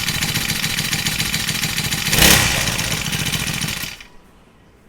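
Brush cutter's 50cc four-stroke engine running just after starting, with a brief louder surge a little past two seconds in; the sound falls away about four seconds in.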